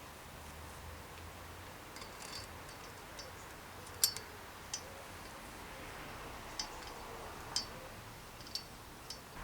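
Scattered light clicks and ticks of small metal parts and tools being handled, about eight at uneven spacing, the sharpest about four seconds in, over faint room noise.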